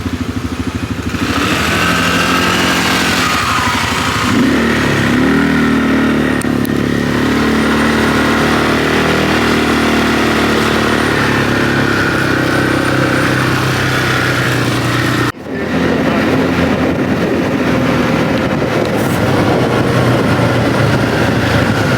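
A motor vehicle's engine running and pulling away, its pitch shifting up and down with speed. The sound breaks off abruptly about 15 seconds in and picks up again.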